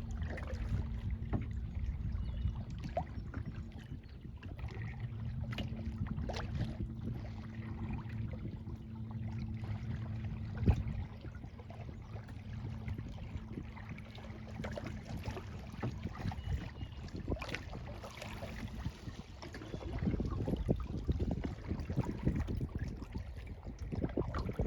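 Kayak paddling: paddle strokes splashing and dripping water, over a low steady hum that fades out about two-thirds of the way through. A single sharp knock near the middle, and the splashing grows livelier near the end.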